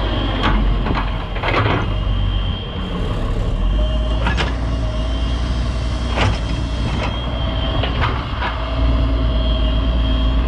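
Hitachi 125 WD wheeled excavator's diesel engine running steadily with a high hydraulic whine, as the bucket works the gravel with several short knocks and scrapes.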